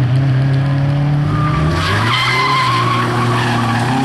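Audi A3 quattro driven hard through a tight slalom bend: its engine runs steadily under load, and its note steps down a little just past a second in. From about two seconds in the tyres squeal in a long skid as the car slides sideways.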